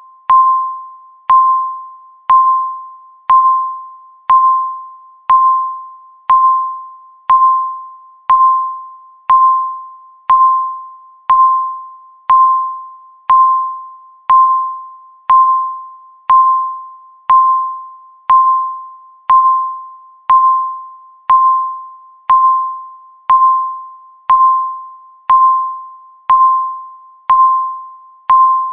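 Countdown timer beeping once a second: a single mid-pitched electronic tone, each beep starting sharply and fading away before the next.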